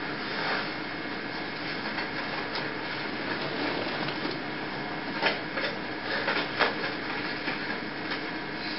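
Steady background hiss with a few light knocks and clicks about five to seven seconds in.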